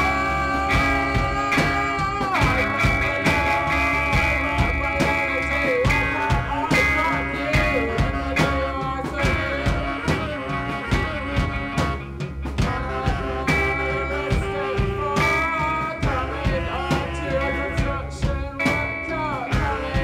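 Live rock band playing with electric guitar, saxophone and drums.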